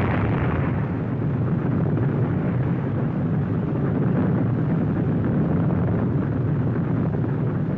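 Long, continuous rumbling of an atomic bomb blast on an old film soundtrack, heavy in the low end, with no break.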